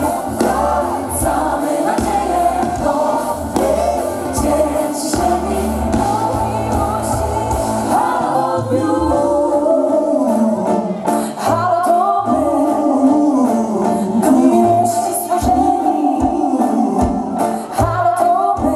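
Live pop song played loud through a stage PA: a female lead vocal with a group of backing singers over a live band. The steady low bass drops out about eight seconds in, leaving the voices over a lighter accompaniment.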